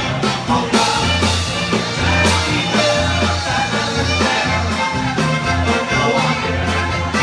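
Instrumental polka music played by a band, with a steady bouncing bass beat under the melody.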